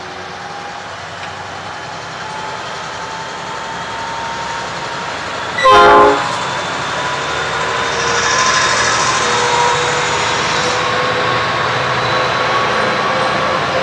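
A train running past, its rumble growing steadily louder, with one short blast of the locomotive horn about six seconds in.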